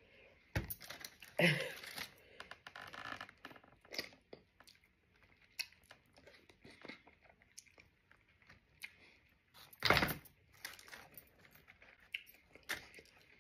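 Close-miked eating of steamed oysters: wet chewing and mouth smacks with scattered small clicks, and one louder sudden sound about ten seconds in.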